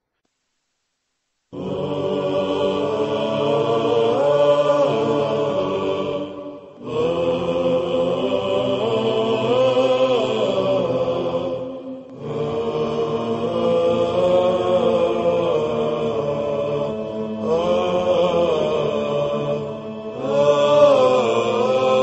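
Silence for about a second and a half, then chanted vocal music: voices singing a slow melody in long held phrases, with brief breaks about every five seconds.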